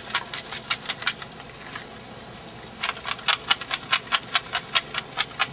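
Salt and pepper being shaken from a glass shaker over the grill: quick rattling shakes about four or five a second, breaking off for a second or two in the middle, over the low hiss of the grill fire.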